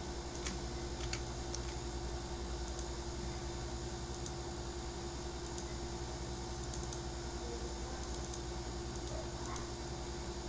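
Sparse, light clicks of a computer keyboard and mouse over a steady electrical hum.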